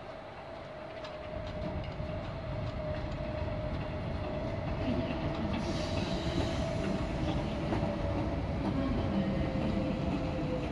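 Passenger train rolling slowly past, its wheels clicking over the rail joints, growing louder over the first few seconds. A steady whine runs through it and falls a little in pitch near the end.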